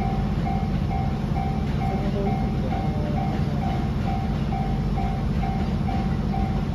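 Japanese level crossing warning bell ringing in a steady electronic ding-ding pattern, about two rings a second, over a continuous low rumble.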